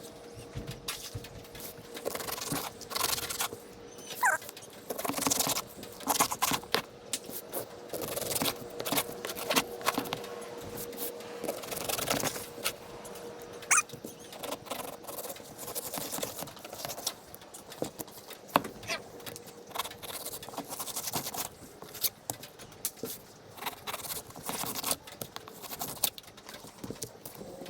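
A fillet knife scraping and cutting through sheepshead as the fish are cleaned, in irregular scrapes and clicks. A faint steady hum runs underneath for most of it and stops about two-thirds of the way through.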